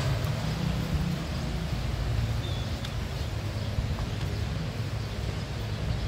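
An engine running steadily with a low hum, with a few faint ticks over it.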